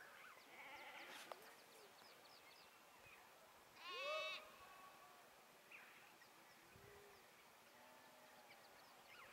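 A sheep or goat bleating: one loud, wavering bleat about four seconds in, with a fainter bleat in the first two seconds. Faint high chirps sound over quiet open-air background.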